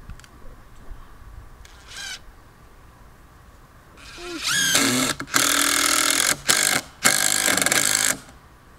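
Cordless drill driving a screw into a wooden board. It gives a short spin-up about two seconds in, then winds up with a rising whine and runs in three loud bursts, stopping just before the end.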